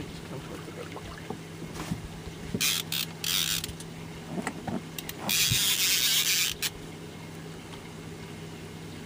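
A spinning fishing reel being cranked as a hooked fish is reeled toward the boat, over a steady low hum. There are several short hissing bursts, the longest from about five to six and a half seconds in.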